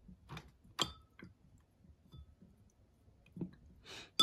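A few clinks of glass, each with a short ring, one about a second in and a louder one right at the end, with soft taps between: a paintbrush knocking against a glass jar of rinse water.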